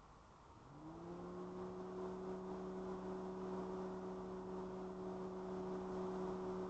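A motor hum that starts about half a second in, rises quickly in pitch, then holds one steady pitch.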